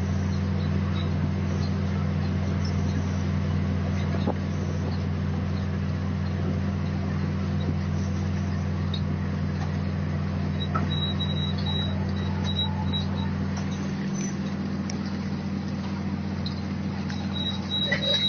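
Steady low drone of a squid-jigging boat's machinery running at night, an even hum with no change in pitch. A faint high-pitched tone comes and goes briefly about two-thirds of the way through and again near the end.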